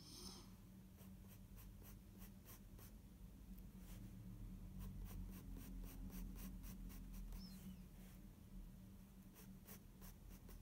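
Faint pencil scratching on sketchbook paper in quick, short flicking strokes, coming in several runs with brief pauses between them.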